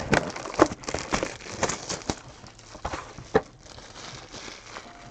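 Plastic shrink wrap on a trading-card box being pulled off and crumpled: a run of irregular crinkles and crackles, easing to a softer rustle after about three and a half seconds.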